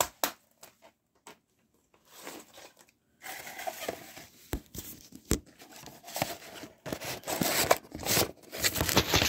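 Handling noise: a sharp click, then after a short quiet stretch, rustling, rubbing and scraping with several sharp clicks as a plastic DVD case and the camera are handled and moved about. It gets busier towards the end.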